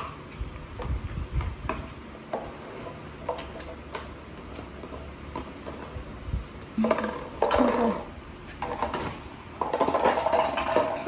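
Chow chow puppy chewing a hard plastic bone toy on a tile floor: scattered clicks and taps as the toy knocks against the tiles. About seven seconds in, louder clattering starts and is the loudest part.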